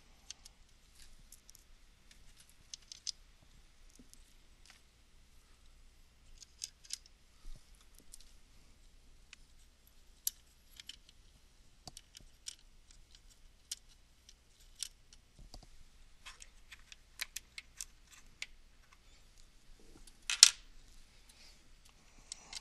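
Small Phillips screws and a number 1 Phillips screwdriver being handled and set into a circuit board: scattered light metallic clicks and ticks, with one louder click near the end.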